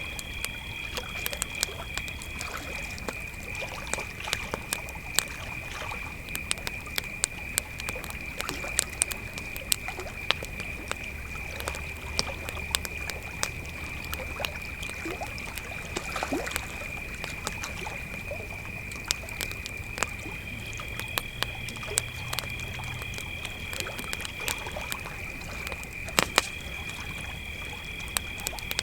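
Crickets calling in a steady high trill, with a second, higher-pitched cricket joining on and off, over a campfire crackling and popping; one louder pop comes near the end.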